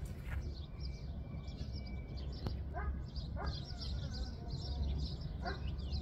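Countryside ambience: many small birds chirping and twittering, with a few short pitched calls about three seconds in and again near the end, over a low steady rumble of wind.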